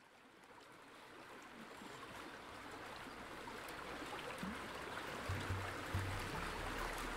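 Flowing water, like a stream, fading in and growing steadily louder. Deep bass notes of music come in about five seconds in.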